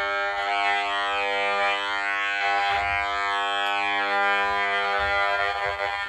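Steady electronic buzz from an RF meter's speaker, turning the pulsed microwave signal of a cordless phone base station into sound. It is the base station's beacon, emitted constantly as long as the base station is plugged in.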